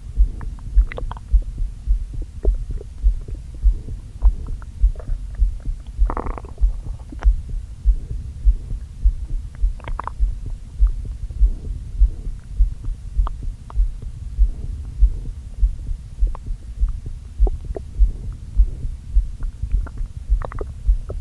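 Stomach and intestinal gurgles picked up by a microphone pressed against the belly, over the regular low beat of the heart. Short gurgles come about six seconds in, about ten seconds in and near the end. The gut is upset, which the owner puts down to eating a lot too quickly after a long time without food.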